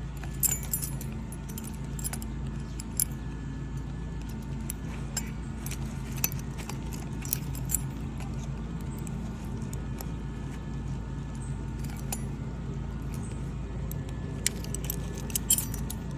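Light metallic clicks and jingling from tools and shingles being handled on a roof, clustered about half a second in and again near the end, over a steady low hum.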